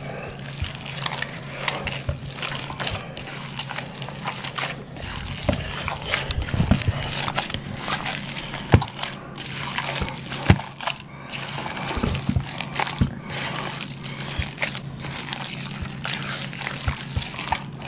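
Bare hands squishing and kneading raw ground meat with cracked eggs in a stainless steel bowl: irregular wet squelches and smacks.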